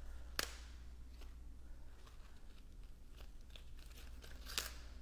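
Lettuce leaves being pulled off a head of leaf lettuce and torn by hand: soft crisp rustling and crunching, with a sharp snap about half a second in and another near the end.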